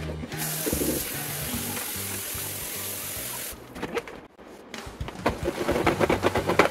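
Kitchen tap running into a stainless steel sink for about three seconds as asparagus is rinsed, then shut off abruptly. In the last two seconds a salad spinner turns with fast clicking. Background music plays underneath.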